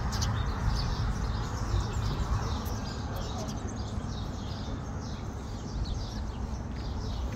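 Outdoor ambience of small birds chirping over a continuous low rumble.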